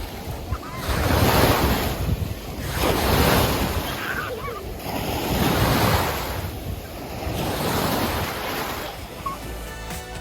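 Small waves washing up on a sandy lake shore, each one swelling and falling back, four times about two seconds apart.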